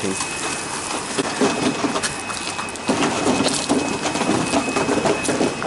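Water splashing and sloshing in irregular spurts as workers wade and handle large fish in a seine net in the shallows.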